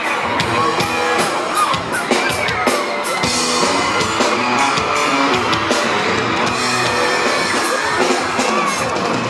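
Live band playing with drum kit and guitar, the drums keeping a steady beat.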